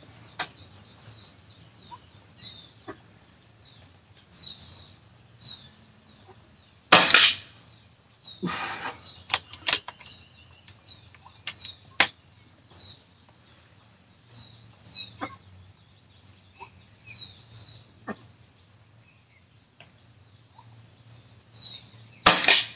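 Diana Outlaw Gen2 .177 air rifle firing: a sharp crack about seven seconds in and another near the end, with a longer clatter shortly after the first shot and a few lighter clicks. Small birds chirp throughout over a steady high-pitched hiss.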